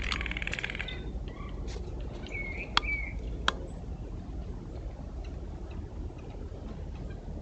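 Blue jays calling: a harsh buzzy call at the start and two short squeaky notes a couple of seconds in. Two sharp clicks come around three seconds, followed by scattered faint ticks over a steady low background rumble.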